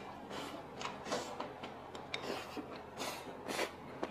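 Eating sounds of a mouthful of stir-fried pork intestines with pickled cabbage and bamboo shoots being chewed close to the microphone: an irregular run of short soft chewing noises.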